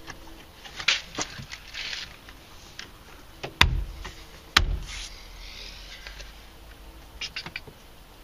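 Hands pressing a plastic door trim panel onto a Honda Accord coupe's door, the panel's retaining clips snapping home. Scattered light clicks and rustles, two loud sharp thumps about a second apart in the middle, and a quick run of clicks near the end.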